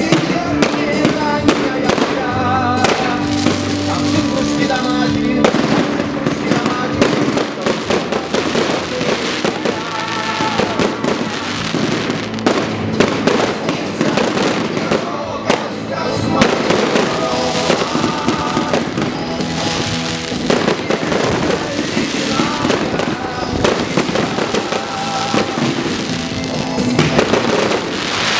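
Fireworks going off in quick succession, a dense run of bangs and crackling, with music playing under them.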